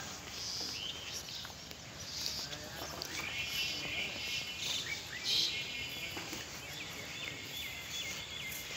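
Outdoor garden ambience with birds chirping among the trees, including two stretches of rapid trilling notes.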